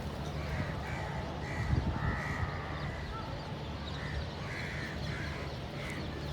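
Crows cawing, many short harsh calls one after another and sometimes overlapping, as from several birds, over a steady low rumble.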